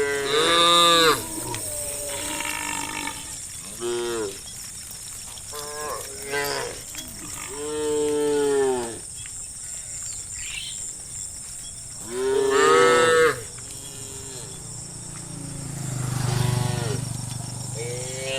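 Cattle mooing repeatedly: a string of drawn-out moos every few seconds, several bending up and down in pitch, with one deep low moo near the end.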